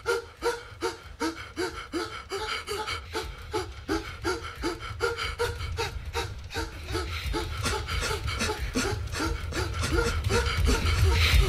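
A person panting heavily in quick, even, voiced breaths, about three a second. A low rumble builds underneath toward the end.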